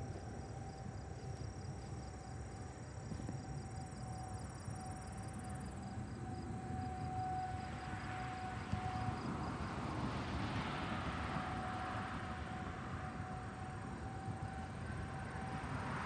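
Distant outdoor tornado warning siren sounding a faint steady tone during its monthly test. A passing vehicle swells and fades around the middle.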